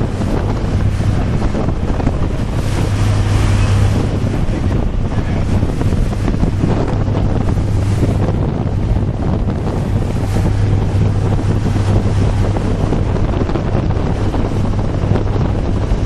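A boat under way: its motor gives a steady low hum under heavy wind noise on the microphone.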